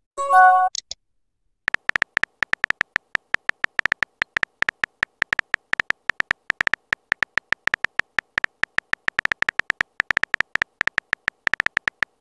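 A short message-alert chime of several pitched tones, then a long run of rapid typing clicks, several a second, from a texting app's on-screen keyboard sound effect as a message is typed out.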